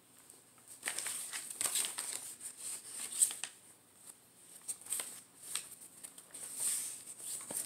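Paper pages of a handmade junk journal being turned by hand: irregular rustling and crinkling with short flicks and soft snaps as pages and inserts flap over.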